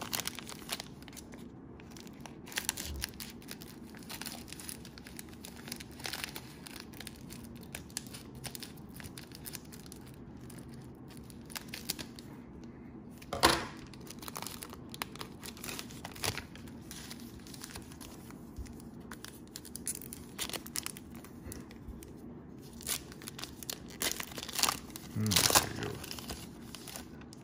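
Plastic wrapper of a basketball trading-card cello pack being torn open and crinkled, with irregular crackles and rustling as the cards are handled. The loudest crinkles come about halfway through and again near the end.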